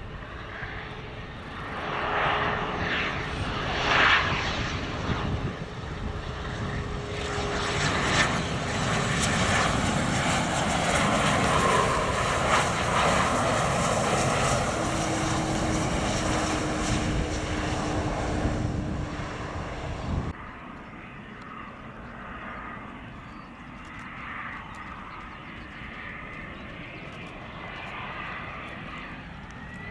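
Gulfstream business jet's engines on landing approach, growing louder as it passes close, with a whine that slowly falls in pitch. About two-thirds in the sound cuts abruptly to the quieter, steady engine sound of another Gulfstream approaching from a distance.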